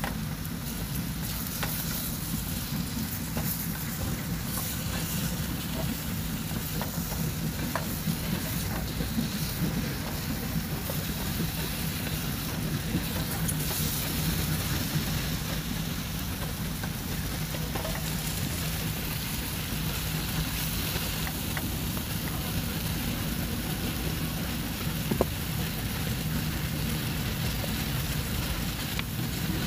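Pieces of spotted dove frying and sizzling in spice paste in a small pot on a portable gas stove, stirred and scraped with a wooden spatula, over a steady low rumble. A single sharp click comes near the end.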